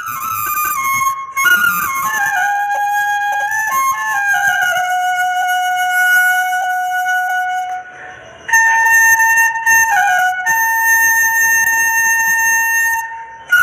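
Bansuri (Indian bamboo flute) playing a slow solo melody of long held notes joined by pitch slides, with a brief dip in level about eight seconds in.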